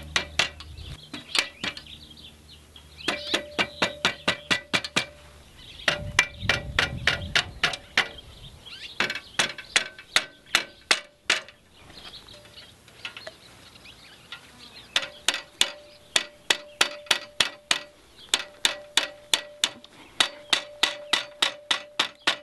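Rubber mallet tapping the rods of a paramotor cage into the outer hoop. The strikes come in quick runs of several taps a second, separated by short pauses, and the frame gives a steady ring under some of the runs.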